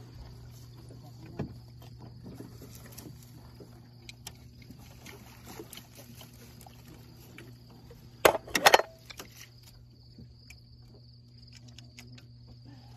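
A steady low machine hum with insects chirping high above it. About eight seconds in comes a quick cluster of three or four loud, sharp knocks.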